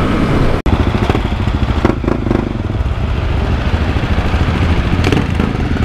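Honda CRF250L's single-cylinder engine running under the rider, with a sudden cut in the sound under a second in; after it, motorcycle engines idling.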